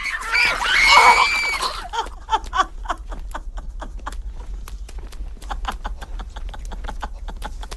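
A high, cackling cry ends in a long held shriek about two seconds in. It gives way to a rapid, irregular run of small wet clicks and smacks, several a second: a raven pecking and suckling at a woman's breast.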